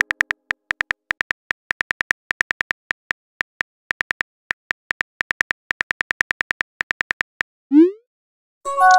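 Keyboard typing sound effects from a texting-story chat app: a fast run of light clicks, about five or six a second, that stops near the end. It is followed by a short rising whoosh as the message is sent, and then a brief chime.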